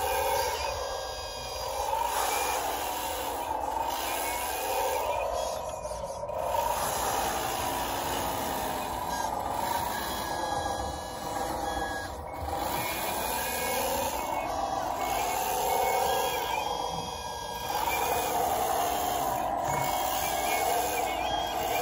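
Electric drive and hydraulic pump motors of a 1/14-scale RC hydraulic wheel loader whining, the pitch rising and falling as it drives and works its plow through snow.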